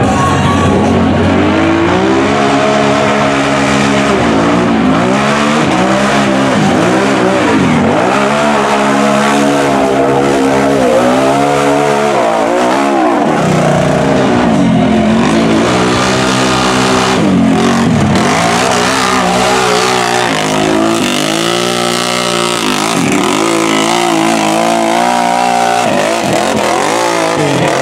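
Lifted mud-racing ATV engines revving hard, the pitch climbing and dropping back again and again as the machines are driven through a mud pit.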